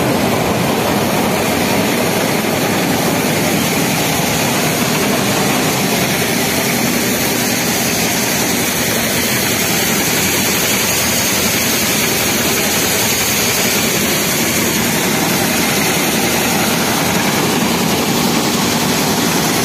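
Friends 840 combine harvester running, a loud, steady mechanical drone of engine and threshing machinery that holds even throughout.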